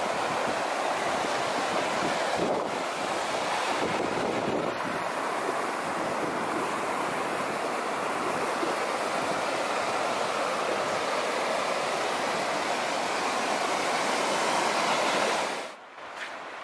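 Steady rush of a fast-flowing stream running through rapids, cutting off about a second before the end.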